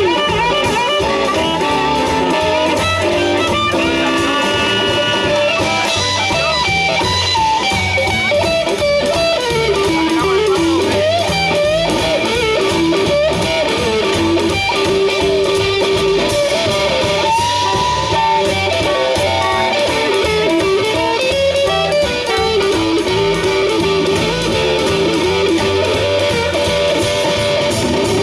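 Live blues band playing an instrumental passage: an electric guitar lead with bending, wavering notes over upright bass and drums, with harmonica at the start and near the end.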